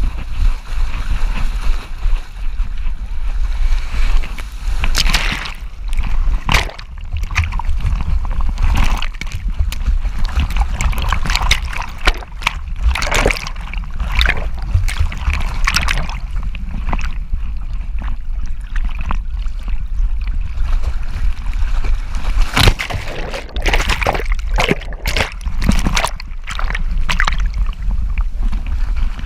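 Seawater splashing and sloshing around a camera strapped to a Boston terrier as it moves through breaking surf, with irregular sharp splashes over a constant heavy rumble of wind and water on the microphone.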